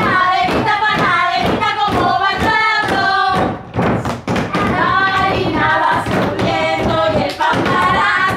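A woman and girls singing a traditional panaderas (bread-kneading) song, keeping a steady beat by slapping their palms on wooden tabletops, with hand claps mixed in.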